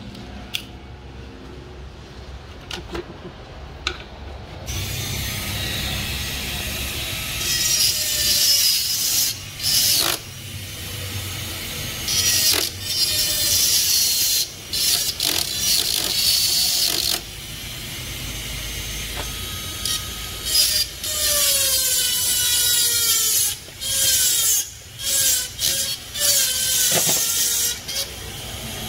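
Hand tools working on a car door's latch and lock parts: a few clicks, then from about five seconds in, long stretches of ratcheting and scraping broken by sharp clicks and short squeaks.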